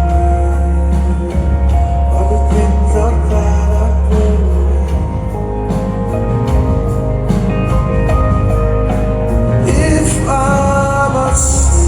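Rock band playing loudly live: sustained electric guitar notes over heavy bass and a steady drum beat, with a male voice singing in parts.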